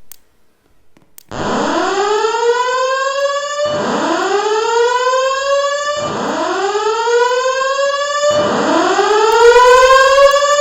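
Fire alarm voice-evacuation system sounding its alert tone between spoken messages: a loud whoop that sweeps upward in pitch, repeated four times. It starts about a second in.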